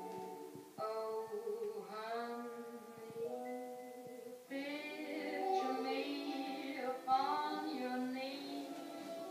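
Music with a singing voice and sustained pitched notes, played from a sound curtain, a hanging screen of white discs that carries the loudspeakers.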